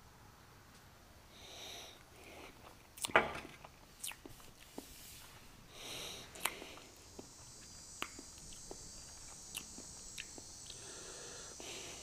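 Faint handling sounds: a sharp knock about three seconds in, a few light clicks, and a glass tumbler set down on a glass tabletop. From about seven seconds in, a steady, high-pitched insect buzz joins them.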